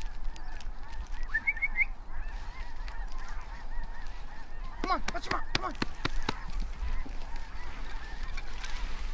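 A large flock of geese honking in a dense, overlapping chorus, with a burst of louder, closer calls about five seconds in.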